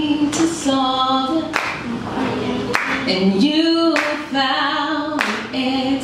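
A woman singing unaccompanied into a microphone. She holds long notes, with a slide up into a note about three seconds in.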